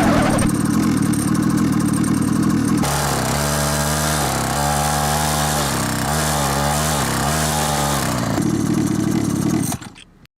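Motorbike engine running steadily, its pitch dipping and rising a few times, then fading out near the end.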